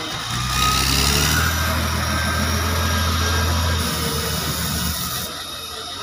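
Heavy diesel engine of logging machinery running steadily. It gets louder about half a second in, and the sound changes suddenly twice, near four and five seconds.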